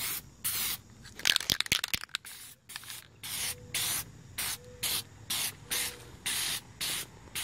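Aerosol spray-paint can spraying light coats in short hissing bursts, about two a second. A brief run of sharp clicks and rattles comes about a second and a half in.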